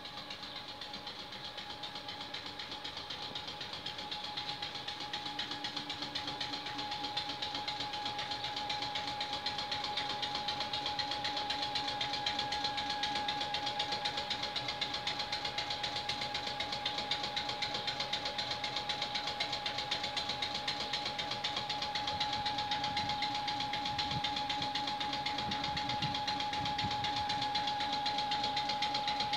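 CM38 piston air compressor on an EN57 electric multiple unit running steadily, a fast even chugging with a steady whine alongside, growing gradually louder over the first ten seconds or so.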